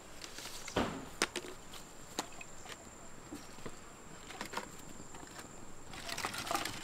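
Pieces of split firewood and branches knocked together and set down as a fire is stacked by hand: a few separate knocks, the loudest about a second in, and a busier clatter near the end. A steady high insect drone runs underneath.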